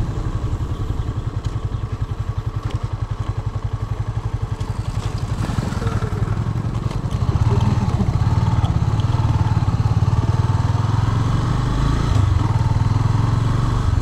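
Motorcycle engine running while the bike is ridden, its exhaust pulsing rapidly and evenly. It grows louder about seven seconds in.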